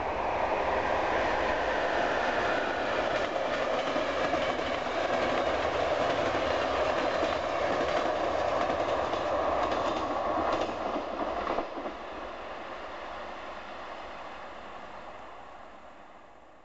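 Passenger train running past, its wheels clattering over rail joints in a run of knocks. About two-thirds of the way through the clatter stops and the train's sound fades away.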